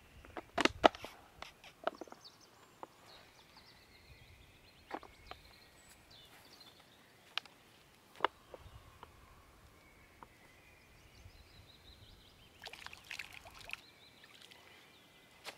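Scattered sharp clicks and knocks of outdoor gear being handled, loudest about a second in, with a short rustle near the end. Faint birdsong is heard behind them.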